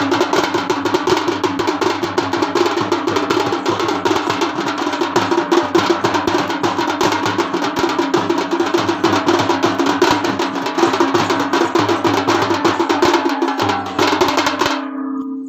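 Raut Nacha folk drumming: fast, continuous beating on hand-held drums struck with sticks, with a steady held tone underneath. It stops suddenly near the end.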